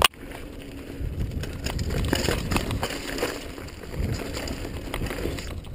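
Mountain bike riding down a dry, loose dirt trail: tyres and frame rattling over the rough ground in a steady rumble with scattered knocks, and wind on the camera microphone. A sharp click at the very start.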